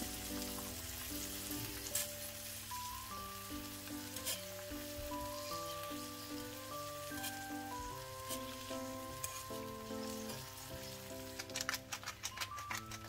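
Thin potato slices sizzling steadily in oil in a cast-iron skillet, under a light background music melody. Near the end there is a quick run of clicks as salt goes on.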